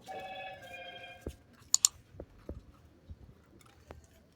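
A short ringing tone that fades out within the first second, then scattered light clicks and knocks of wooden sticks being handled for a bonfire, with two sharp clicks close together near the middle.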